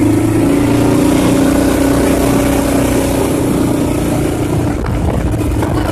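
Gasoline engine of a Kawasaki Mule utility vehicle running steadily while driving, heard from inside the open cab. The engine note eases off briefly near the end.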